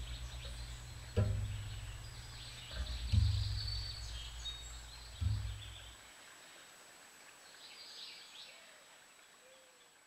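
Small songbirds chirping faintly at a seed feeder over a low rumble broken by three sudden thumps. The rumble cuts out about six seconds in, leaving only faint chirps.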